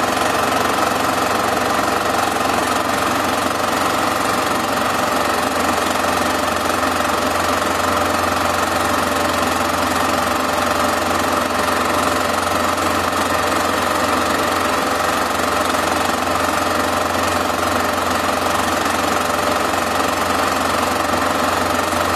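Super 8 film projector running: a steady motor whir with the fast, even clatter of the film advance.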